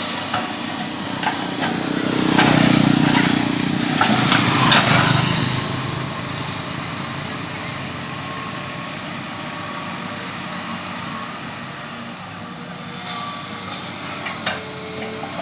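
Excavator's diesel engine running steadily. About two seconds in it grows louder for a few seconds, with scraping and clanking as the bucket digs at the soil, then it settles back to an even run, with a few more clanks near the end.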